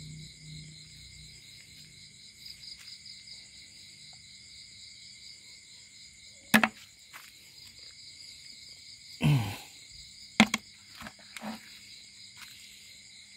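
Night insect chorus, a steady, faintly pulsing high trilling in several bands, with a few sharp knocks in the second half.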